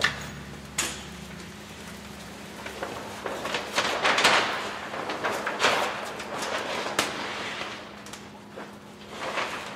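Large sheet of vinyl car-wrap film being pulled and stretched by hand over a car body: two sharp clicks at the start, then the film rustling and crinkling in a run of swishes, louder in the middle. A faint steady low hum lies under it.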